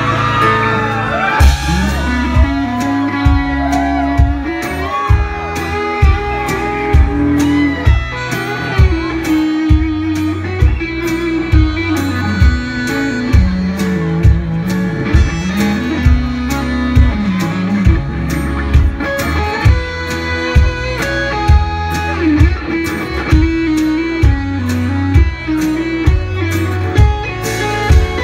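Live band playing an instrumental break: an electric guitar lead with bent notes over acoustic guitar, bass guitar and a steady drum beat.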